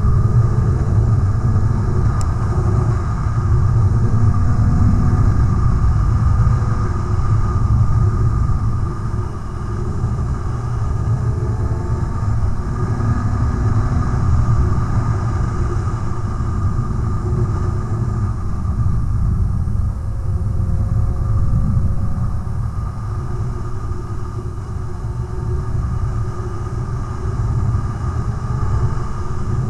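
Motorcycle riding at road speed: heavy wind rumble on the bike-mounted camera's microphone, with the engine note underneath slowly rising and falling in pitch as the throttle changes.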